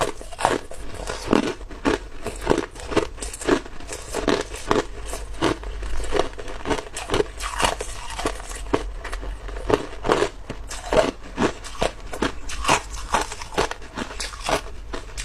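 Chunks of hard clear ice being bitten and chewed close to the microphone: a continuous run of sharp crunches and cracks, several a second.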